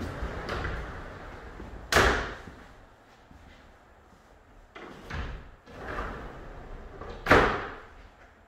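Frameless glass wall panels being slid along their track, rolling with a rumble and knocking into place against one another with two loud clunks, about two seconds in and near the end.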